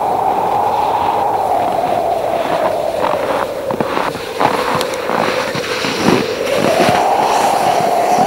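A vehicle in motion, its steady running sound sinking in pitch and climbing back again near the end, with a run of knocks and rattles in the middle.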